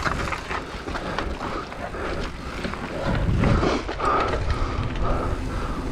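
GT Fury downhill mountain bike rolling fast down a dirt trail: tyres on hardpacked dirt, with the chain and bike rattling and clicking over the bumps. A heavier rumble comes about three seconds in.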